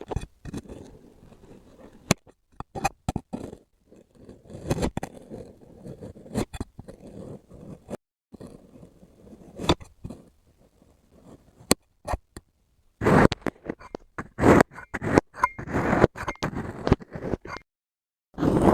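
Kinetic sand being cut and scraped: an irregular run of crunchy scrapes and sharp clicks that grows louder and busier about thirteen seconds in.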